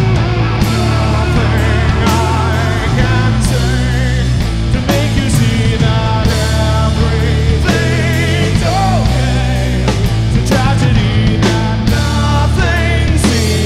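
Live rock band playing loudly: electric guitar and a drum kit with crashing cymbals, and a man singing with a wavering, held voice over them.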